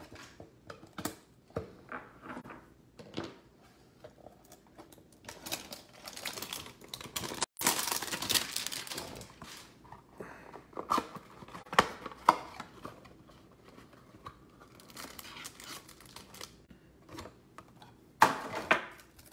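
Hands opening a Chronicles football card hanger box: scattered taps and clicks of the cardboard, a stretch of tearing and crinkling of the packaging from about five seconds in, and a short loud crackle near the end.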